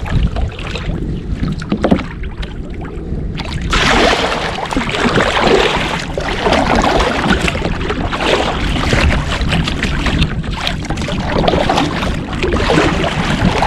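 Double-bladed kayak paddle dipping and splashing in sea water, with water washing along the kayak's hull. The strokes start about four seconds in and repeat roughly once a second, over a low wind rumble on the microphone.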